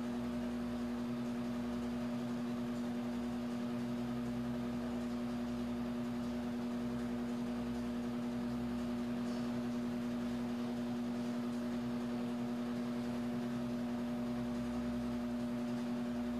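Steady hum at a constant pitch over a faint even hiss, with no other events.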